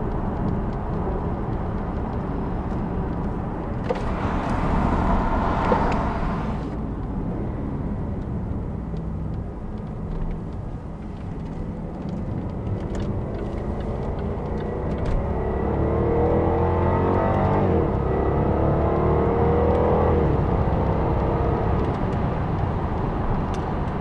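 The Jaguar XKR's 5.0-litre supercharged V8, heard from inside the cabin while the car is driven. The engine note rises in pitch under acceleration between about fifteen and twenty seconds in.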